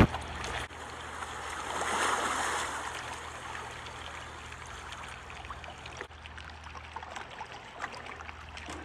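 Water splashing and trickling along the hull of a moving boat, swelling briefly about two seconds in, over a low steady hum.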